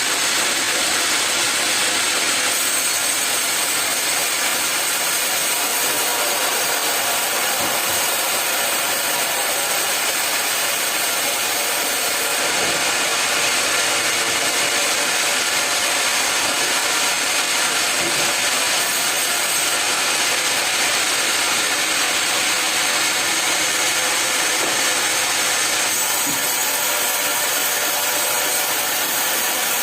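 Sawmill saw cutting steadily through a log, a continuous high, hissing cutting noise with no break.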